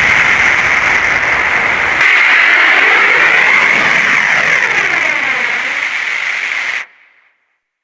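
Loud hissing static noise, strongest in the upper middle range, that changes tone about two seconds in and cuts off abruptly about a second before the end.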